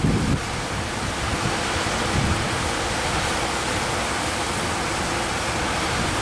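Heavy surf breaking and washing on a beach in strong wind, a steady rushing hiss, with wind buffeting the microphone briefly at the start.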